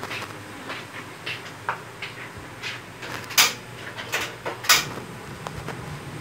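Kitchen clatter: irregular light clicks and knocks of things being handled and set down, with two sharp, louder knocks a little past the middle, about a second apart.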